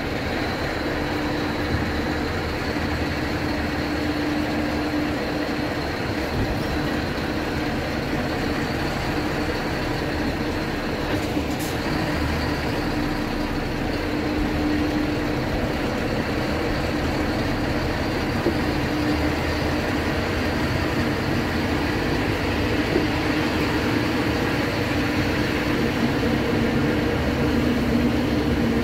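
Truck engine running as the truck rolls slowly along a steel ferry ramp, heard from inside the cab: a steady drone with a low hum. A single sharp click comes about twelve seconds in.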